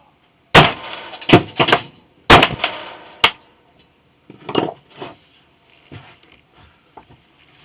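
Metal tools clanking and clattering on a workbench: a run of loud, sharp knocks with brief ringing in the first three seconds, then a few softer knocks.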